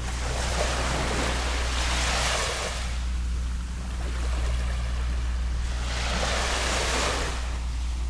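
Gentle waves lapping on the shore: two washes about five seconds apart, each rushing up and hissing for two to three seconds. A steady low hum runs underneath.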